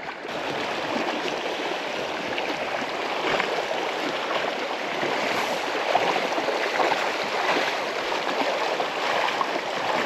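Shallow river rapid rushing over stones, heard close up: a steady, loud rush of water that starts abruptly just after the beginning.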